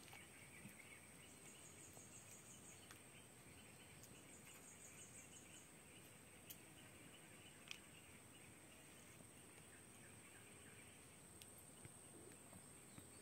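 Faint insect chorus: a steady high buzz with chirring underneath, and two short stretches of evenly pulsing trills, with a few faint ticks.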